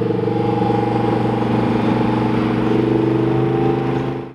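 Lamborghini Huracán Performante's V10 running at low, fairly steady revs as the car drives past and pulls away.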